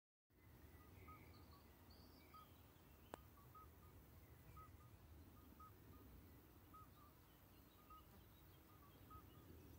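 Several common midwife toads calling: faint, short, clear piping notes at two or three slightly different pitches, each repeated at intervals of roughly a second and overlapping with one another. A single sharp click about three seconds in.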